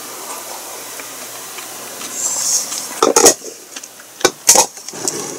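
A hissing slurp of hot miso soup sipped from a wooden bowl about two seconds in, then a few sharp knocks of tableware, the loudest one about three seconds in, as the bowl and chopsticks are handled.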